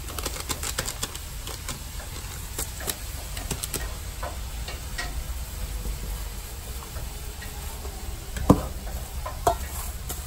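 Plastic-gloved hands kneading and squeezing a minced fish mixture in a stainless steel bowl, making many small crackling clicks, with two louder knocks near the end.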